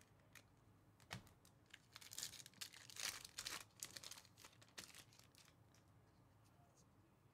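A 2024 Topps Star Wars Chrome hobby pack's foil wrapper being torn open and crinkled. It comes as a quick run of short rips and crackles from about one to five seconds in, loudest in the middle.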